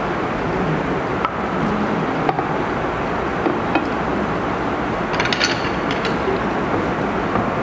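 Fish-bone stock simmering and bubbling in a frying pan on an induction hob, a steady hiss, while stuffed tofu and bitter gourd pieces are slid into it from a plate with a wooden spatula. A few light clicks from the spatula and plate against the pan, with a quick cluster about five seconds in.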